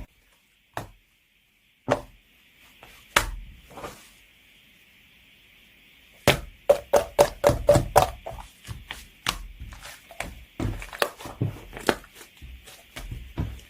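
Whipped-cream slime being worked by hand, making sharp clicking pops. They come scattered at first, then in a quick run of about five a second between six and eight seconds in.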